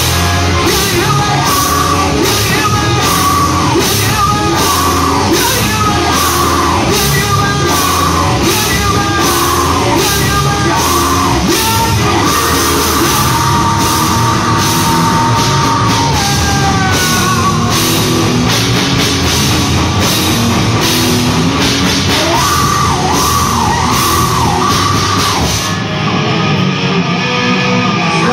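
Live heavy rock band playing loud: electric guitars and a drum kit with steady cymbal strokes, with a singer's voice over the top. About two seconds before the end the cymbals and drums drop out, leaving the guitars ringing.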